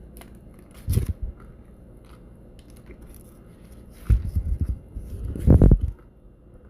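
Biting into and chewing a crispy chicken sandwich whose patty is coated in crushed Takis chips, in three loud bouts: about a second in, around four seconds in, and the loudest around five and a half seconds in.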